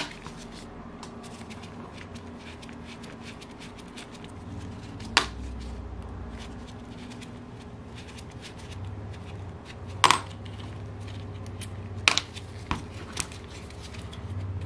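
Small metal clicks and clinks of an Allen key and the steel screws being worked out of the aluminium rear crankcase cover of a Saito FA-82 model glow engine. Sharper single clinks come about five seconds in, about ten seconds in, and three times close together around twelve to thirteen seconds.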